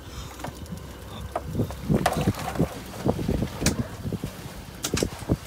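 Irregular knocks and clatter from handling gear on a small fishing boat, thickest from about a second and a half in, over a steady low rumble.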